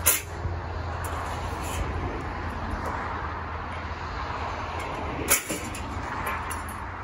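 Chainsaw on a chainsaw mill running steadily at low revs, with two sharp knocks, one right at the start and another about five seconds in.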